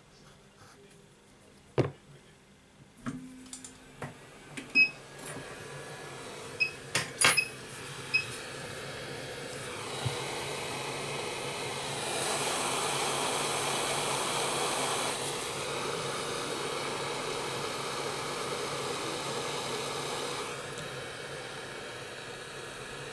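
Several sharp clicks and taps of a metal scalpel and tweezers against a steel BGA reballing stencil. Then, from about eight seconds in, the steady airflow of a hot-air rework station blowing, swelling louder for a few seconds in the middle and settling lower near the end.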